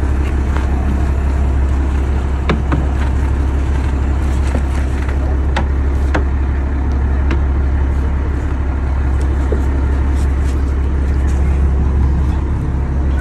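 Fishing boat's engine running with a steady low drone, with a few sharp knocks around the middle.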